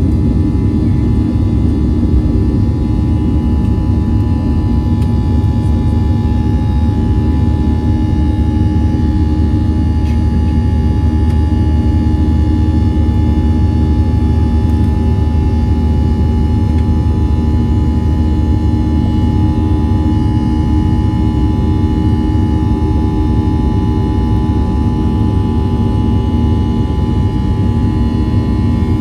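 Boeing 737-700's CFM56-7B turbofan engines running at takeoff thrust, heard from the cabin over the wing, during the takeoff run, liftoff and initial climb. A steady, loud rumble with several steady high fan tones above it.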